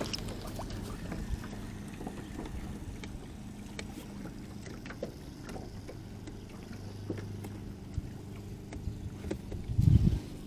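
Small fishing boat's motor running with a steady low hum, with scattered light clicks and knocks. A brief, louder low rumble comes near the end.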